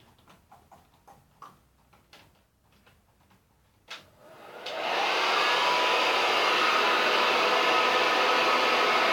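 Faint handling clicks, then a click about four seconds in as a handheld hair dryer is switched on. It runs up within a second to a steady, loud blowing whir.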